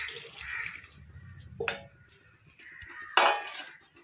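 Boiled chickpeas and their cooking water poured from a steel pot into a non-stick pan, the pouring trailing off within the first second. Then two metal clanks of cookware, the second and loudest about three seconds in.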